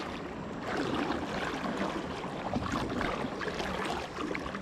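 Steady wash of wind and flowing river water, with the soft whir of an ultralight spinning reel retrieving a small crankbait.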